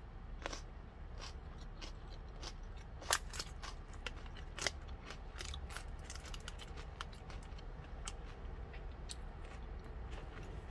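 Someone chewing a mouthful of food, with scattered small crunchy clicks and a couple of sharper ones, over a low steady hum.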